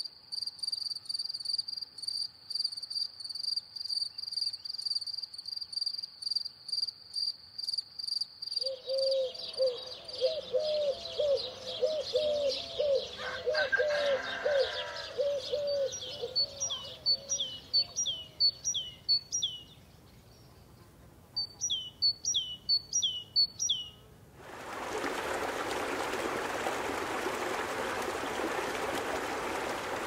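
Night crickets trilling steadily at a high pitch, pulsing several times a second, give way about eight seconds in to birdsong: quick descending whistled phrases repeated over a lower, rapidly repeated call. About 24 seconds in this cuts to the steady rush of a mountain stream over rocks.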